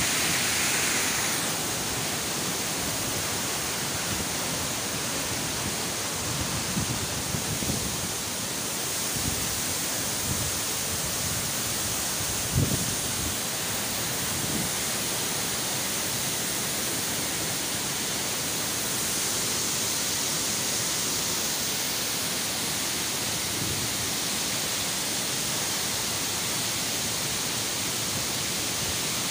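Swollen waterfall in flood after typhoon rain, its water pouring down in a steady, even rush. A few brief low bumps cut in, the clearest about halfway through.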